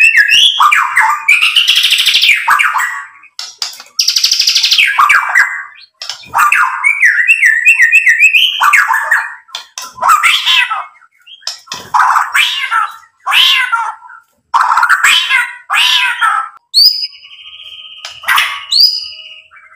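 White-rumped shama (murai batu) singing a loud, varied song of fast repeated notes, harsh chattering phrases and clear whistles, broken by short pauses. Near the end comes a held steady whistle with quick upward-flicking notes.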